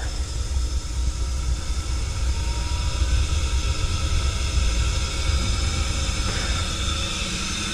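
Ideal Independent Plus C30 combi boiler running after being repressurised, firing to heat hot water with a tap open: a steady low rumble with a hiss over it.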